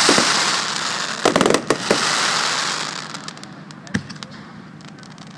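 Fireworks bursting overhead: a quick cluster of sharp bangs about a second in, then a crackling hiss that fades away, and a single bang near the end.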